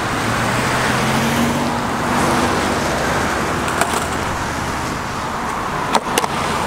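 Skateboard wheels rolling on asphalt, a steady rolling rumble and hiss, mixed with road traffic passing alongside. A few sharp clicks come about four and six seconds in.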